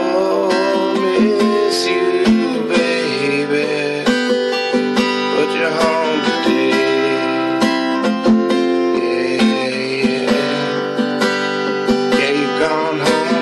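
A song's instrumental passage led by strummed acoustic guitar, with no lyrics sung.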